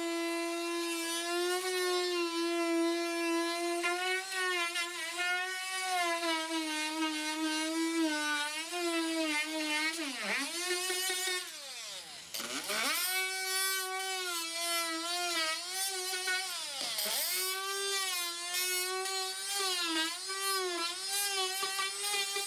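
DeWalt oscillating multi-tool with a straight blade cutting through the flooring: a steady high buzz whose pitch dips several times as the blade works along the cut, most deeply about twelve seconds in.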